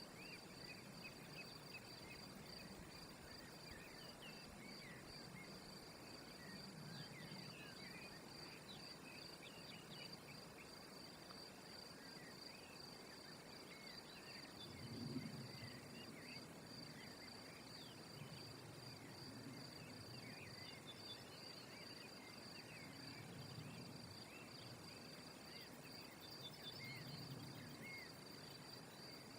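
Faint outdoor ambience: a steady, high, pulsing insect trill, with scattered short bird chirps and a soft low rumble. A brief low bump comes about halfway through.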